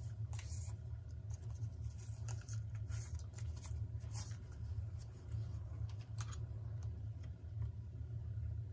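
Small pieces of cardboard scraping and rustling against a metal clock dial as they are fitted in place by hand, in a few short scratchy touches. A steady low hum runs underneath.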